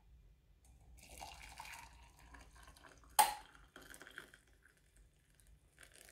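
Water poured from a kettle into a ceramic mug holding a tea infuser, splashing and trickling faintly. A single sharp clink comes about three seconds in.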